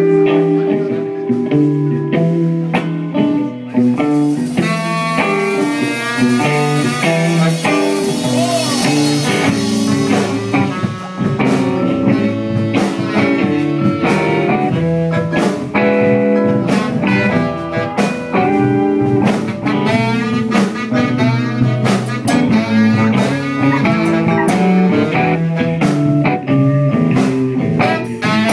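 Blues band playing live, with guitar lines and a drum kit keeping a steady beat; some notes bend in pitch.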